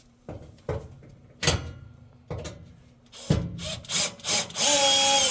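A few knocks and clicks of handling, then a power drill-driver runs steadily for about a second and a half near the end, backing out a Phillips No. 2 screw.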